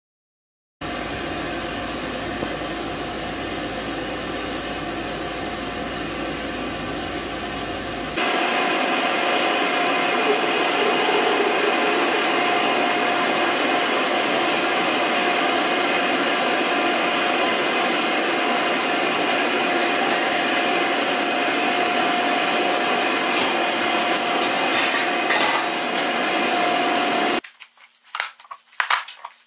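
Steady machine running, with a steady whirring tone. It changes abruptly to a louder pitch about eight seconds in. It cuts off near the end, followed by a few light metallic clinks.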